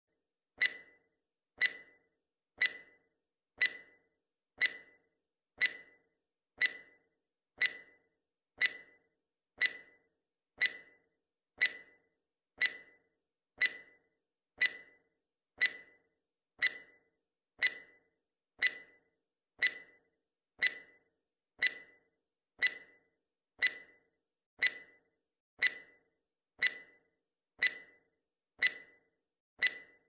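Countdown timer's tick sound effect: one short, sharp clock-like tick every second, keeping time with the count.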